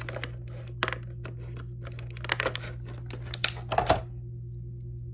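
Clear plastic packaging bag crinkling and crackling in the hands as the action figure's spare heads are worked out of it, a quick irregular run of crackles that stops about four seconds in. A steady low hum runs underneath.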